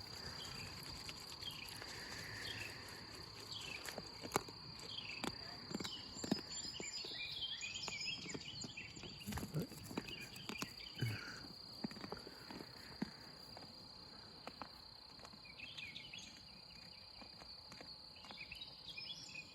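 Crickets chirring steadily at a high pitch, with scattered light clicks and knocks throughout.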